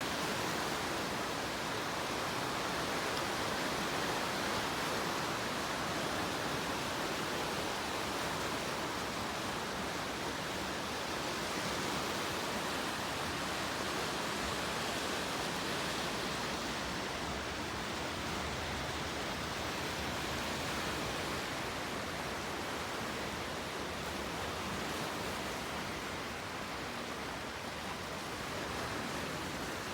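Water waves washing steadily on the shore, a continuous even rush with no single break standing out.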